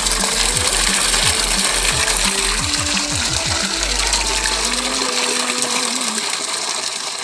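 Water gushing steadily from a bamboo pipe and splashing onto the foliage below, under background music with a deep pulsing bass beat that drops out about five seconds in.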